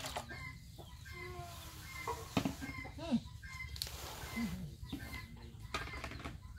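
Chickens clucking a few short times over a low background rumble, with a few clicks of metal pots and bowls being handled.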